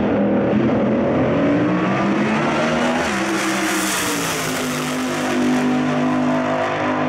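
Two drag racing cars, a supercharged altered and a dragster, accelerating hard side by side at full throttle, their engines rising in pitch over the first few seconds and then holding high. The sound is loudest as they pass about four seconds in.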